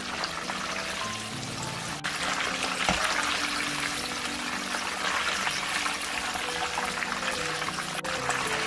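Chicken wings deep-frying in hot oil: a dense, steady crackling sizzle, with background music playing over it.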